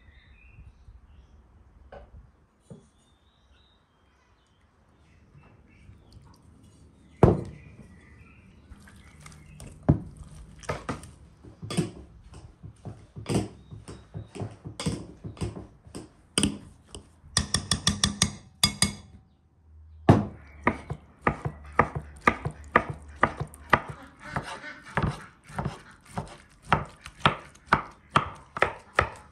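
A spoon clinking and scraping in a glass bowl as a filling is mixed, then a knife chopping boiled greens on a wooden board, about two strokes a second from about two-thirds of the way in.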